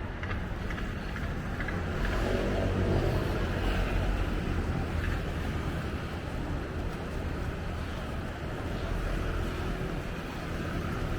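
Outdoor city ambience: a steady low rumble with a hiss, swelling for a few seconds about two seconds in.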